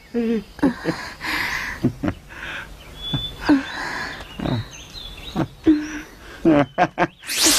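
Human voices making short, broken vocal sounds with breathy stretches between them, followed by a sharp rising whoosh near the end.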